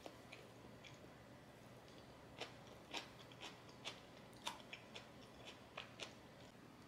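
Faint chewing: a person eating, with about a dozen soft, crisp mouth clicks over a few seconds, starting about two and a half seconds in, over quiet room hiss.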